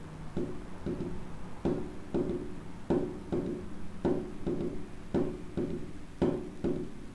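Recorded heart sounds of a ventricular gallop rhythm: each heartbeat gives the first and second heart sounds followed closely by a third heart sound (S3), so the low, dull thumps come in repeating groups of three, the 'Kentucky' cadence. The S3 is the sign of an overdistended, volume-overloaded ventricle: normal in children, adolescents and pregnancy, pathological in older adults with, for example, heart failure.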